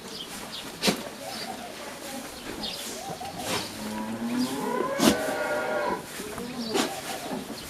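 A farm animal's long, drawn-out call lasting about two seconds, starting low and rising, amid a few sharp clicks or knocks and faint bird chirps.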